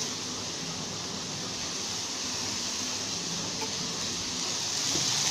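Faint, steady hiss of chickpeas and potatoes frying in a kadhai on the gas stove, duller and quieter than when the pan is close, with no stirring.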